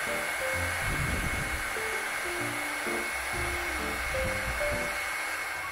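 Heat gun blowing steadily with a faint motor whine, shrinking heat-shrink tubing over a freshly soldered 2 mm banana connector. Soft background music plays underneath.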